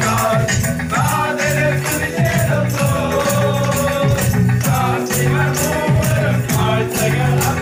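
Group of voices singing a Christmas carol together, one voice through a microphone, with a hand-held jingle tambourine shaken and clapping hands keeping a steady beat.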